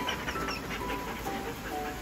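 Background music with a light melody of held notes, over a German Shepherd dog panting.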